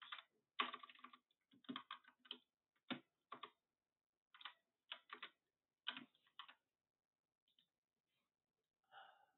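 Typing on a computer keyboard: quiet, irregular keystrokes in short clusters that stop about two-thirds of the way through.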